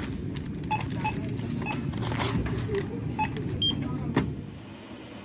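Steady low rumble with scattered short electronic beeps and clicks, dropping off near the end.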